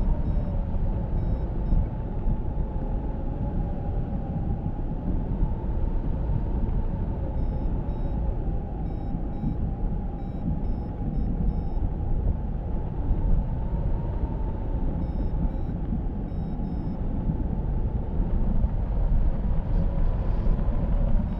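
Wind rushing over the microphone of a hang glider in flight: a heavy low buffeting with a steady, slightly wavering whistle. Faint short high beeps come in runs now and then.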